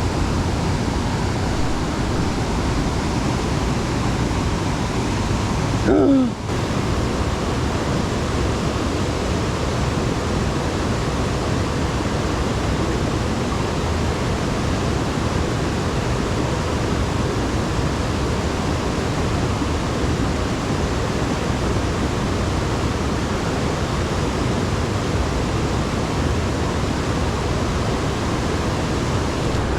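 Steady rushing of water from the high, flood-swollen tailwater below a dam, an even roar that holds constant except for a brief break about six seconds in.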